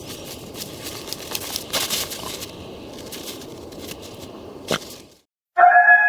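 Crunching, crackling noise with scattered sharp clicks for about five seconds, cut off abruptly. After a brief silence, a steady held tone with several overtones starts near the end.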